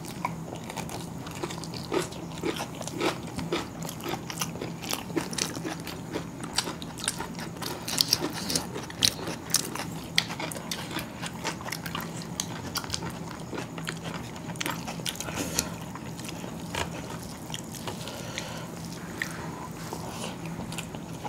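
Two people eating biryani by hand, heard close up: irregular chewing and mouth sounds with scattered small clicks and crunches. A steady low hum runs underneath.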